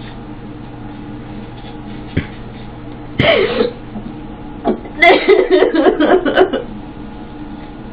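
Electric hair clippers humming steadily while a woman sobs: one loud broken cry about three seconds in, then a quick run of gasping sobs from about five seconds in.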